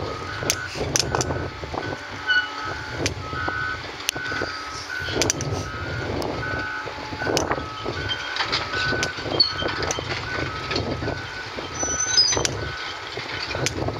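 A two-tone travel or backup alarm on heavy construction equipment, beeping back and forth between a higher and a lower tone. Under it is the steady rumble of diesel excavator engines, with scattered sharp knocks.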